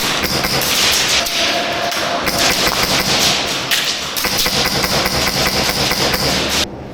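Airsoft electric guns firing rapid full-auto bursts, a dense rattle of sharp clicks, many a second, that breaks off briefly just before the end.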